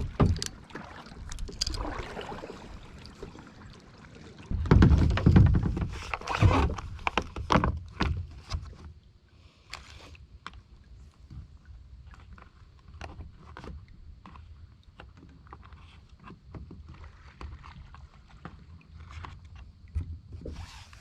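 Kayak on the water: paddle splashes and knocks against the hull, loudest about five to seven seconds in, then quieter scattered clicks and drips.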